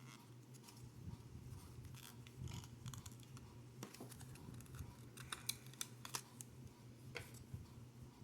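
Faint clicks and scrapes of hockey trading cards and their packaging being handled, with a few sharper ticks in the middle, over a low steady hum.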